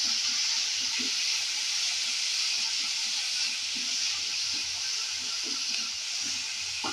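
Chopped onions, garlic, curry leaves and green chillies sizzling in hot oil in an aluminium pressure cooker: a steady hiss, with light scraping as a wooden spatula stirs them.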